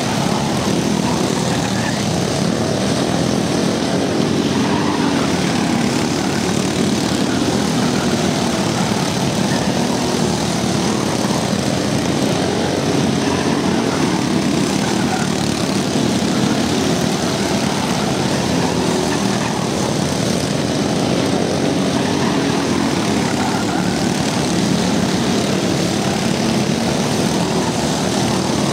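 A pack of racing go-karts with small single-cylinder Briggs & Stratton Raptor engines, many engines running at once in a steady, overlapping buzz as the karts race through a turn.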